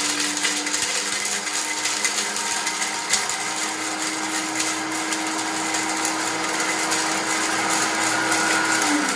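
Silvercrest blender running at full speed, grinding dry tiger nuts: a steady motor hum under a loud gritty grinding noise. Near the end it is switched off and the motor's pitch falls as it spins down.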